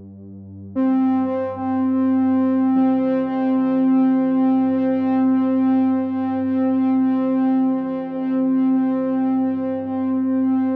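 Background music: sustained synthesizer chords that get much louder about a second in and change chord about three seconds in.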